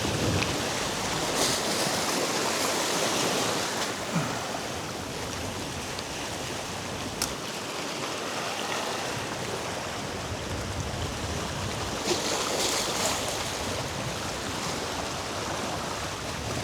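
Sea surf washing against a rock jetty: a steady rush of water that swells twice, with a single sharp click about seven seconds in.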